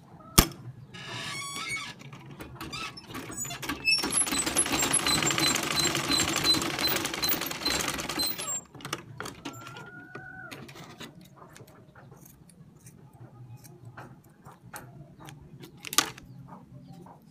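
Butterfly sewing machine stitching fabric: a short run about a second in, then a louder, fast and even run of stitching lasting about four seconds. A sharp click comes just after the start and another near the end.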